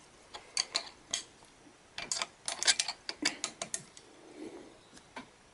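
Wrench turning the bolts that hold a steel swivel plate down on a lathe carriage: a run of sharp metal clicks and ticks, a short spell first, then a denser run.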